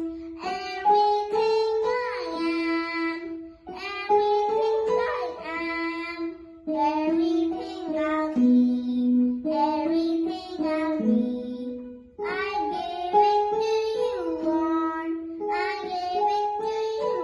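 A young girl singing a song while accompanying herself on a Casio electronic keyboard. Her sung phrases come over the keyboard's held notes, with short breaths between lines.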